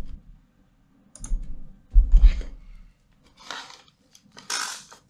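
A few short handling clicks and rustles, like keyboard and mouse use at a desk. The loudest is a dull thump about two seconds in.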